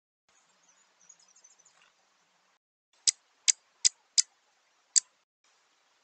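Five sharp taps, unevenly spaced, from a small bird pecking at seed on a feeder tray. Faint, short, high bird chirps come before them.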